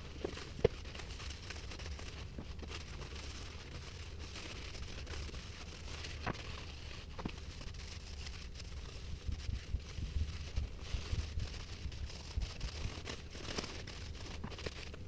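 Paper towel rustling and rubbing over a walnut bowl as it is wiped down and finish is wiped on, with a few light knocks, over a low steady hum.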